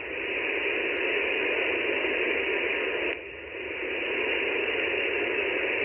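Steady hiss of band noise from the Wolf RS-998 SDR transceiver receiving single sideband on 20 metres (14.265 MHz), with nobody transmitting on frequency. The hiss is cut off sharply above about 3 kHz by the receive filter, and dips briefly a little after three seconds.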